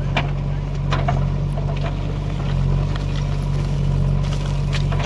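Diesel engine of a heavy loading machine running close by at a steady speed, with a few light clicks over it.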